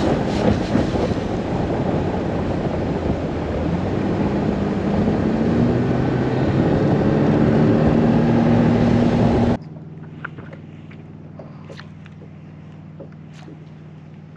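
Bass boat's Mercury outboard running at speed with wind rushing over the microphone; the engine note climbs a little past the middle. About ten seconds in the sound cuts off abruptly, leaving a much quieter low steady hum with a few faint clicks.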